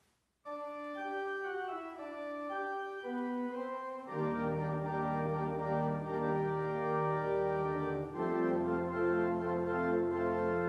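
Organ playing: a single melody line for the first few seconds, then full sustained chords with deep bass notes joining in about four seconds in, moving to a new chord at about eight seconds.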